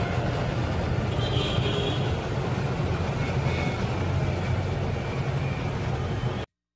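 Steady road and engine drone heard from inside a moving car at highway speed, with a faint brief high tone about a second and a half in. It cuts off suddenly near the end.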